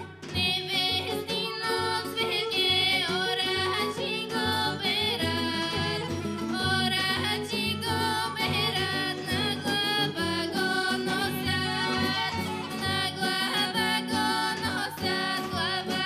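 Two female voices singing a Bulgarian folk song, accompanied by a folk band, with a large drum keeping a steady beat under the melody.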